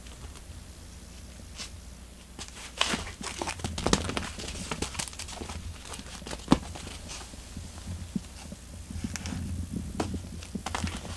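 A cat playing with a fabric-covered stick toy on cork floor mats: a quiet stretch, then a run of scratches, clicks and knocks as it grabs and bites the toy and it bumps on the floor, the sharpest knock about six and a half seconds in.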